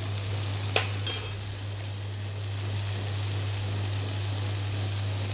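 Chopped eggplant, tomato and onion sizzling steadily in hot oil in a frying pan. There is a short sharp clink about a second in.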